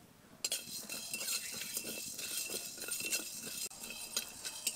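Flat metal spatula scraping and stirring whole spices in a dry aluminium kadai. The seeds rattle against the pan in many quick small clicks and scrapes, starting about half a second in.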